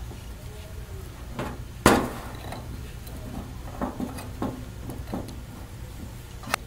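Wire snips and a helping-hands clip being handled while trimming LED leads: one sharp metallic click about two seconds in, a few light ticks, and another sharp click near the end, over a steady low hum.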